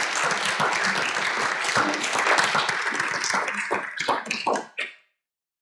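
Audience applauding, a dense patter of many hands that thins to a few scattered claps and dies away about five seconds in.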